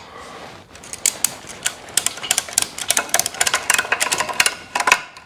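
Rapid, irregular metallic clicking and clinking from rigging hardware, a ratchet strap with its hooks and buckle being worked around an engine on a hoist. It starts about a second in and pauses briefly near the end.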